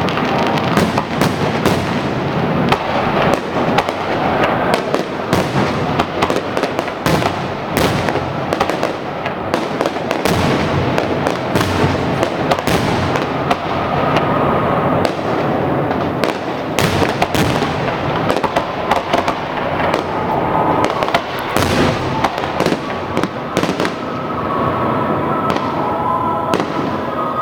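Fireworks display going off: a dense, unbroken run of sharp bangs, several every second.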